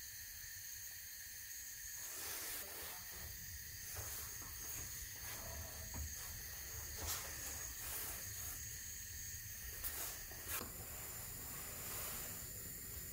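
Steady hiss of a gas hob burner under a simmering saucepan, with a few short clicks and knocks as the pan is handled.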